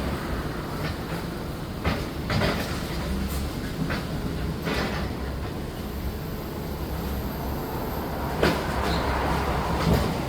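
Demolition machinery at work: a steady low engine drone with several irregular clanks and knocks, the loudest about two seconds in and again near the end.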